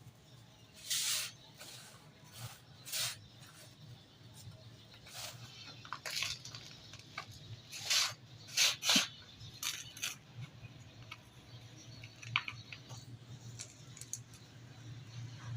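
Dry dirt crumbling: irregular short, gritty crunches and crackles, with a cluster of louder ones just past the middle, over a faint steady low hum.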